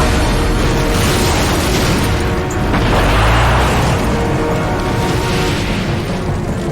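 Film sound-effect explosions booming over a music score, with a big blast swelling about two and a half seconds in.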